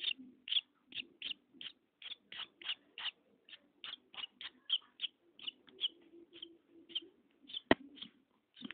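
Newborn swallow chick chirping: a steady run of short, high peeps, about three a second. A single sharp tap near the end, louder than the peeps.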